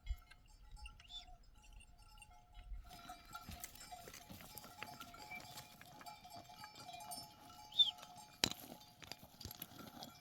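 Bells on a grazing flock of sheep clinking and ringing, getting busier about three seconds in. A short high-pitched chirp and a sharp click stand out near the end.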